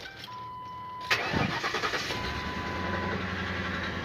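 Lincoln 4.6-litre V8 cold-started: the starter cranks about a second in, the engine catches and settles into a rough idle, with a steady electronic tone sounding before and after the start. The roughness comes from a cylinder 7 misfire.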